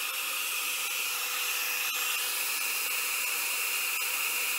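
Small handheld blow dryer running steadily, blowing alcohol ink across the painting surface to soften and blend the colours.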